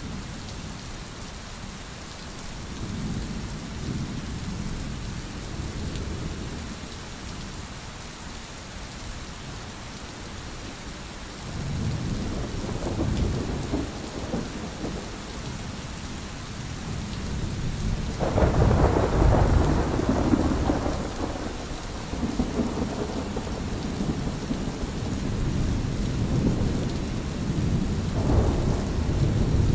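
Steady rain with rolling thunder. Low rumbles build from about twelve seconds in, the loudest rumble comes a little after the middle, and further rumbles follow near the end.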